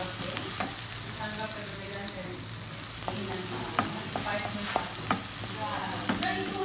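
Chopped onion and garlic sizzling in olive oil in a nonstick pan, stirred with a slotted wooden spoon that scrapes and knocks lightly against the pan several times.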